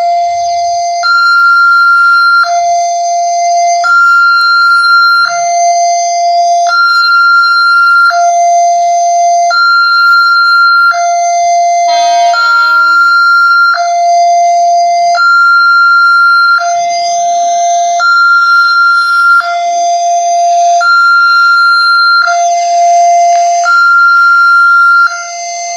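Railway level-crossing warning siren of an Alkmar crossing gate sounding its two-tone alarm: a low tone and a higher tone alternating evenly, each held about a second and a quarter. It is the crossing's warning that a train is approaching.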